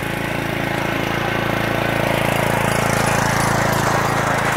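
Riding lawn mower's engine running steadily, getting a little louder about three seconds in.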